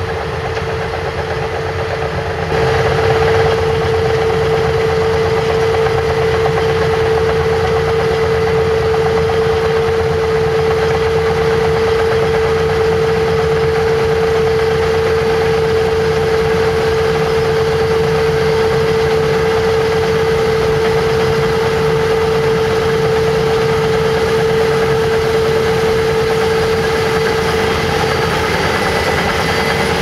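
Claas Lexion 760 combine harvester running steadily under load while harvesting rice: a continuous machinery drone with a strong, even hum held throughout. It gets louder about two and a half seconds in.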